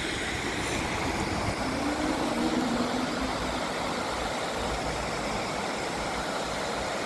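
Water rushing steadily over the River Torrens weir, a constant even wash with a faint low hum mixed in about two seconds in; it cuts off abruptly at the end.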